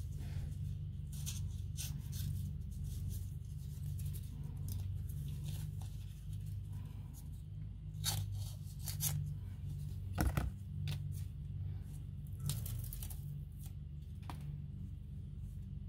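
Adhesive tape sheets being cut and handled: a string of short, sharp crackling rips and snips, the loudest a little after ten seconds in. A steady low hum runs underneath.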